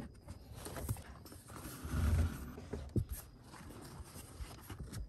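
Handling noise: a few light knocks and clicks, with a heavier low rustle about two seconds in, as a cloth is tucked over the disconnected positive cable of a car battery.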